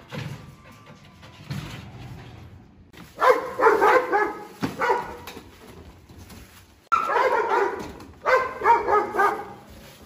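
Dogs barking in two rapid bouts, one about three seconds in and a longer one from about seven seconds in, each a quick run of short barks.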